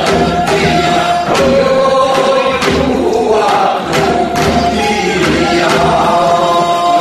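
Live Korean traditional (gugak) stage music: voices singing together in held, wavering notes over repeated percussion strikes.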